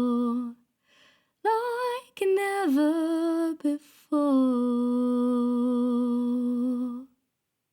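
A woman's unaccompanied voice singing wordlessly: a few short phrases with a dip in pitch, then one long steady held note that ends about seven seconds in.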